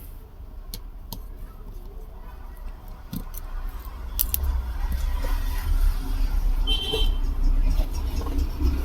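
Screwdriver backing out the small screws that hold a Bluetooth speaker's circuit board: a few light metallic clicks and ticks over a steady low rumble, which gets louder about four seconds in.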